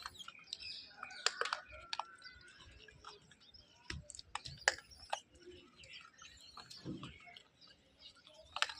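Small birds chirping and tweeting, with scattered sharp clicks and taps.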